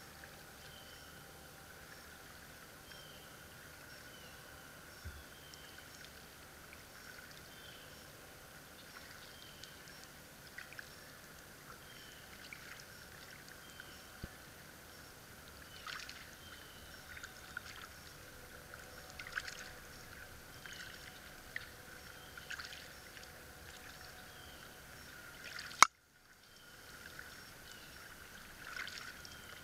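A canoe paddle dipping and dripping in still lake water, with light splashy strokes that come more often in the second half. A faint high chirp repeats about once a second in the background. A single sharp click comes near the end.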